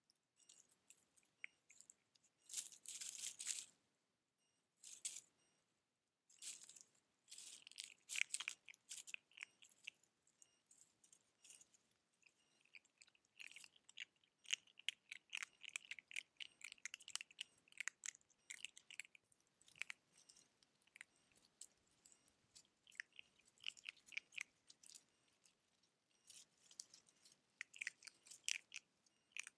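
Red fox cubs rummaging and chewing in dry leaves and soil: a faint, irregular run of short crackles and crunches, with a louder rustle about three seconds in.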